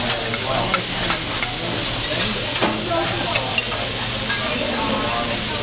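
Diced beef sizzling on a hot teppanyaki griddle while a hibachi chef stirs it with a metal spatula and fork, the utensils scraping and clicking against the steel plate now and then.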